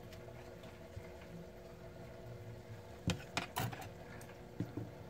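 Low steady background hum, then a quick cluster of light clicks and taps about three seconds in and two softer ones near the end, as crochet tools are put down and picked up on a tabletop.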